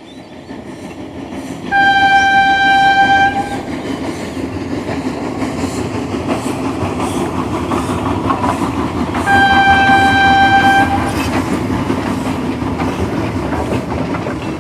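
A train running with a steady rumbling clatter, sounding a single-pitched horn twice, each blast lasting about a second and a half, the second about seven seconds after the first.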